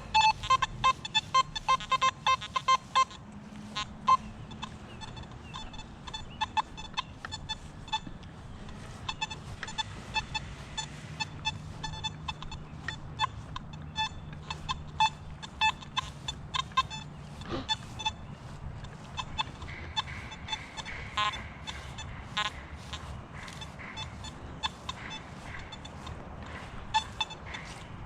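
Nokta Simplex+ metal detector giving short, repeated beeps as the coil is swept over targets, sometimes in quick clusters.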